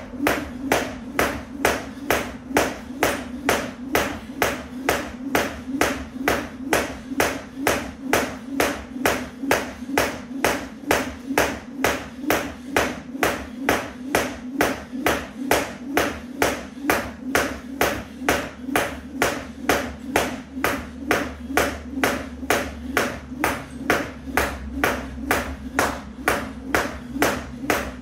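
Jump rope slapping the jump mat in a steady rhythm, about two sharp strikes a second.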